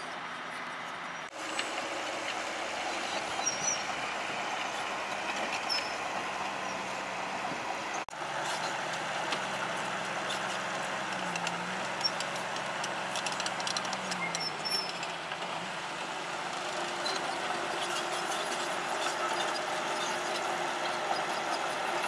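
Komatsu D31P crawler bulldozer's diesel engine running under load as it pushes soil, with the engine note dipping and recovering twice.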